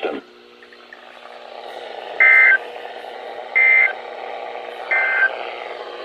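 NOAA Weather Radio SAME alert header for a Required Monthly Test: three short bursts of digital data tones, each switching between two pitches, about a second and a half apart, over a steady hum from the broadcast. The bursts are the coded header that sets off weather-alert receivers.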